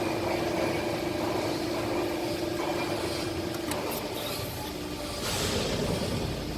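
Hydraulic guillotine shear running: a steady machine hum that stops about halfway, a few sharp clicks just after, then a short hiss near the end.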